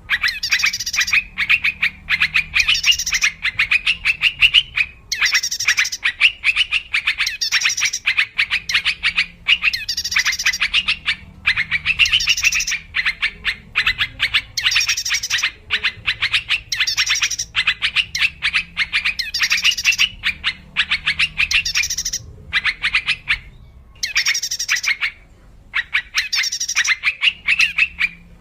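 Yellow-vented bulbul song played as a lure call: fast, chattering phrases of many quick notes, repeated one after another every second or two with short breaks.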